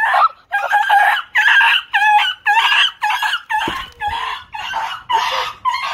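Beagle squealing in a quick run of short high-pitched yelps, about two a second, squeaking like a dog toy after jumping out of a towel and falling to the ground.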